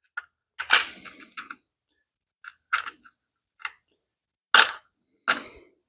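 Irregular clicks and knocks of metal parts being handled while an engine oil cooler and its mounting hardware are fitted onto brackets, with the sharpest knock about four and a half seconds in.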